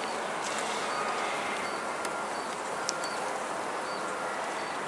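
Honeybees buzzing steadily over an open hive, a dense, even hum, with a couple of faint clicks.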